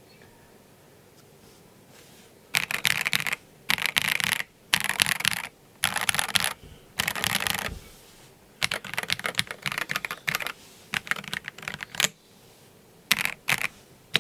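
ZZANEST Elements 75XT mechanical keyboard, with a polycarbonate plate, stock JWK Black linear switches and Akko keycaps, being typed on. After a quiet start, several dense bursts of rapid keystrokes come, then looser, scattered keypresses and one last short flurry near the end.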